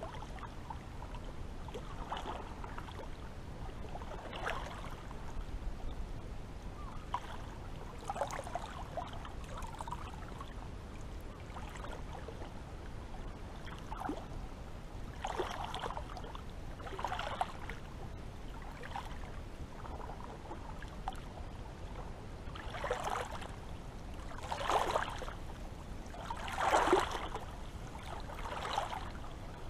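Seawater lapping and splashing, short irregular splashes every second or two over a steady low rumble. The splashes grow stronger near the end.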